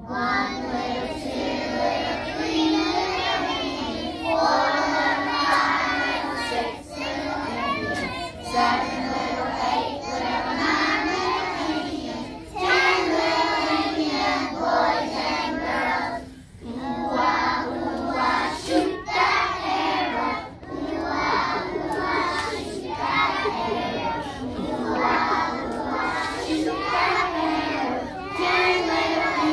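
A group of preschool children singing a song together, with short breaks between lines.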